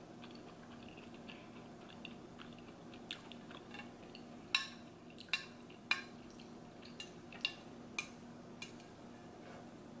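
Close-miked eating of black bean noodles (jjajangmyeon): soft chewing and mouth sounds, with a run of about seven sharp clicks in the second half.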